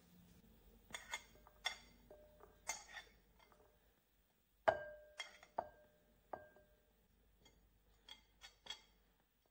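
A metal fork clinking and scraping against a ceramic plate and a glass mixing bowl as mashed chickpeas are pushed off the plate. There are several light taps, then a loud strike about halfway through followed by three more that leave the glass ringing briefly, then three light ticks near the end.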